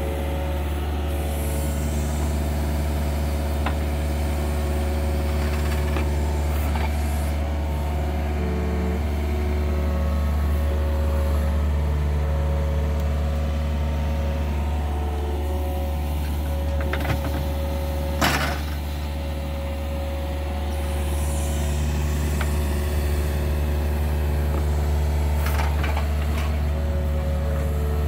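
Yanmar ViO50 mini excavator's diesel engine running steadily under load while it digs, the pitch of its hydraulics shifting as the arm and bucket move. A single sharp knock comes about two-thirds of the way through.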